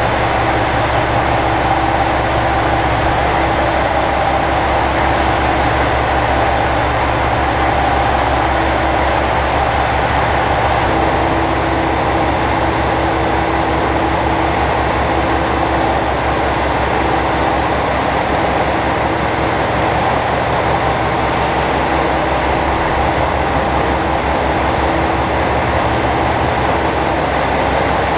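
JR Shikoku 2000 series diesel railcars idling while standing at the platform: a steady low engine throb with a constant hum above it.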